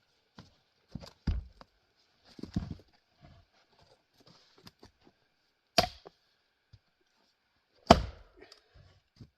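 Axe strikes splitting grand fir firewood: a few softer knocks of wood in the first few seconds, then two sharp, loud chops about two seconds apart, the second the loudest.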